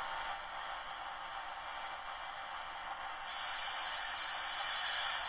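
Sound decoder of a model FS D443 diesel locomotive playing through its small speaker: a steady hissing engine sound with no bass. About three seconds in, a higher hiss joins it.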